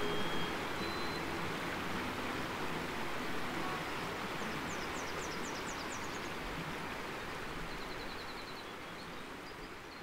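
Outdoor forest ambience: a steady rushing hiss with birds calling over it, a quick run of high chirps about five seconds in and a thin trill near the end. It slowly grows quieter.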